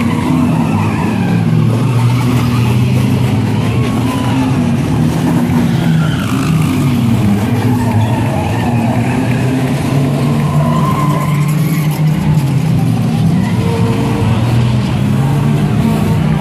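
Several stock car engines running and revving continuously, their pitch rising and falling as the cars race and crash around the track.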